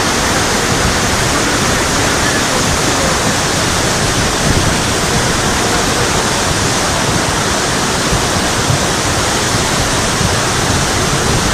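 Flash-flood water surging across a dry wash, a loud, steady rush of muddy water.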